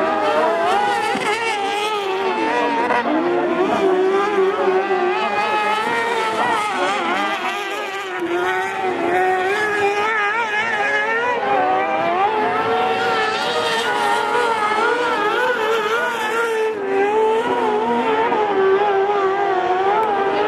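Carcross buggy's motorcycle engine revving hard around a dirt track. Its pitch rises and falls again and again as the driver accelerates and lifts off, with a few brief drops.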